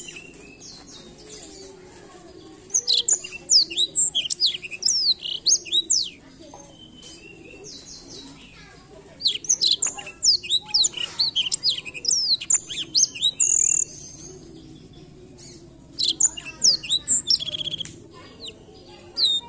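Blackthroat (black-throated canary) singing: three phrases of fast, high warbling notes, each lasting a few seconds, with pauses between them.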